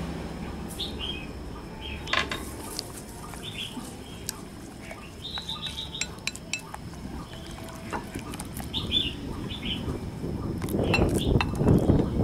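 Wooden chopsticks clinking and tapping against a cut-glass bowl while beating eggs with chopped spring onions, with small birds chirping in the background. Near the end the sound grows louder and noisier as pig brain is scraped into the bowl from a second bowl.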